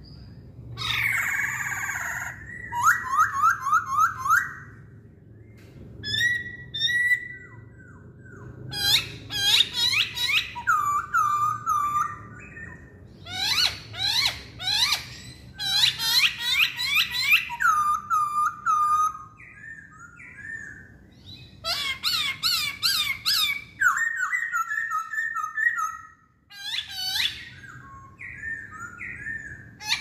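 A caged masked laughingthrush (poksay Hongkong) singing. Its loud song comes in repeated phrases of rapid, sharply falling whistled notes with short pauses between them, and there is a harsher, rasping call about a second in.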